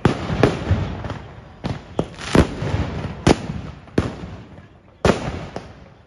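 Fireworks going off at close range: about nine sharp bangs at uneven intervals, each trailing away quickly.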